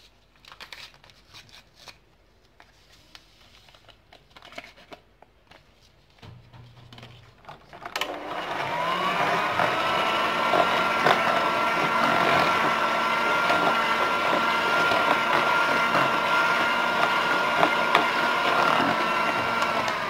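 Electric hand mixer beating eggs, sugar and vanilla for a génoise sponge. After a few faint knocks, its motor starts about eight seconds in with a rising whine, runs at a steady pitch with the beaters whirring through the mixture, and winds down at the very end.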